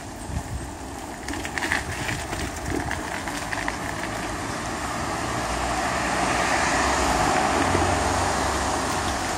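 Bicycle rolling over a cracked, patched asphalt cycle path, with scattered clicks and rattles in the first few seconds. A steady wash of street noise swells toward the end.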